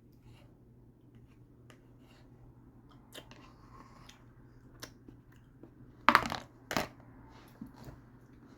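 Eating sounds: small clicks and scrapes of a fork in a plastic microwave meal tray, with two louder sharp knocks about six and seven seconds in.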